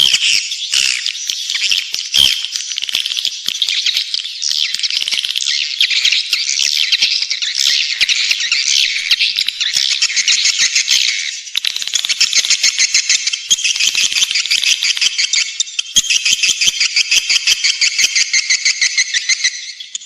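Swiftlet lure call: a dense, continuous chorus of edible-nest swiftlets' high-pitched buzzy, rattling chirps. In the second half it turns into fast, evenly clicking trills.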